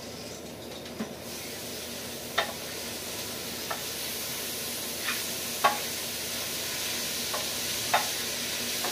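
Cabbage and onions sizzling in an aluminium electric skillet, the hiss coming up as the lid is lifted about a second in. A wooden spoon stirs them, knocking against the pan about once a second.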